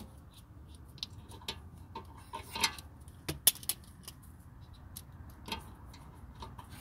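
Torx socket on a steel extension clicking and tapping against a brake caliper as it is worked onto the lower guide bolt: scattered, irregular sharp metallic clicks, the loudest a little past halfway.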